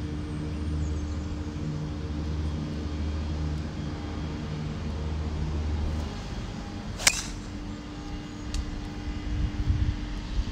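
A steady motor hum, as of a vehicle running, that fades about six seconds in. A single sharp click about seven seconds in, then wind buffeting the microphone near the end.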